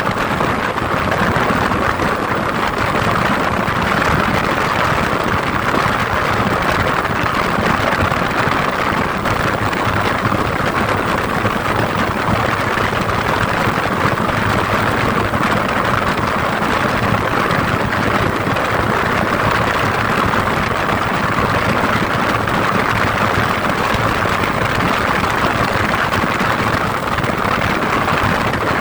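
Steady engine and road noise of a car on the move, an even rushing hum that does not change.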